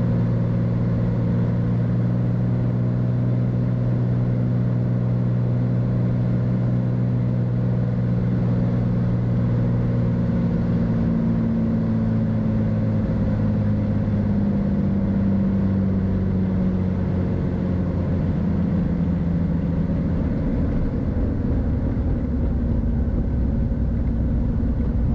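Beechcraft Bonanza's piston engine and propeller droning in the cockpit through the landing. The engine tones sink and fade from about halfway in as the power comes back for the flare and touchdown, and a low rumble grows near the end as the airplane rolls along the runway.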